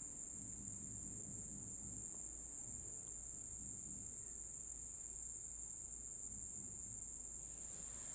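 Crickets trilling: one steady, high-pitched drone with no breaks.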